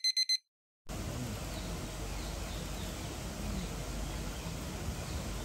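Four quick high electronic beeps, then after a brief silence a steady outdoor background: a low rumble with faint high chirps of birds or insects.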